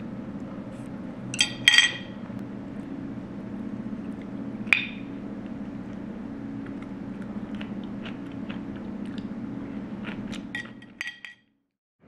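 Chopsticks and dishes clinking over a steady low hum. There is a sharp double clink about a second and a half in, a single clink near five seconds, and a few lighter ones near the end before the sound cuts to silence.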